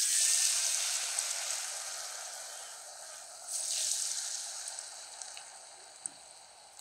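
Batter-coated cassava pieces hitting hot oil and deep-frying with a loud sizzle that starts suddenly and slowly dies down. It surges again about three and a half seconds in, then fades.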